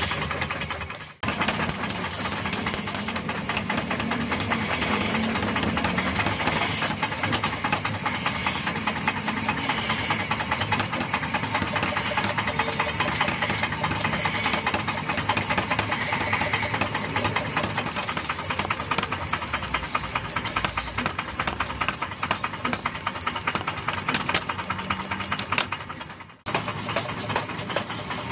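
Mechanical power hammer running with a rapid, steady train of heavy knocking blows as it forges a red-hot axe head. The sound drops out briefly about a second in and again near the end.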